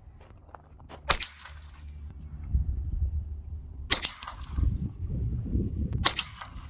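Three .22 rifle shots a few seconds apart, each a sharp crack with a short echo, over a low rumble in the second half.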